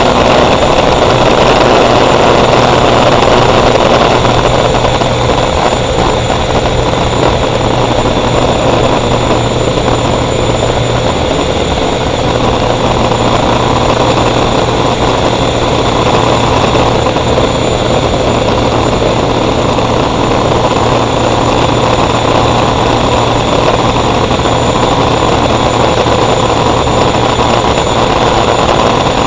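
Gas turbine engine of a Sanger catamaran race boat running steadily under way, loud, with a steady high whine over the rush of engine and water noise.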